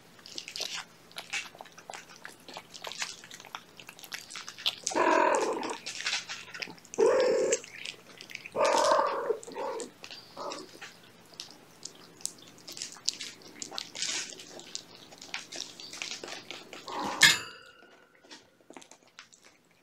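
Cats eating wet cat food off a plate: a steady run of small wet chewing and lapping clicks, broken between about five and ten seconds in by several louder cat vocalizations of about a second each. A single sharp knock sounds near the end.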